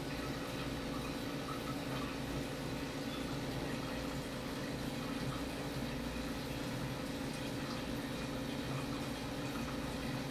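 Aquarium filter running: a steady trickle and wash of water over a low, steady hum.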